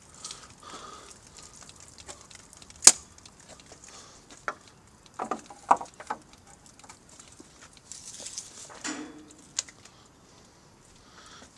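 Scattered clicks and knocks, with one sharp click about three seconds in, a quick cluster of knocks around five to six seconds, and a short hiss near nine seconds. The pressure washer is not running steadily.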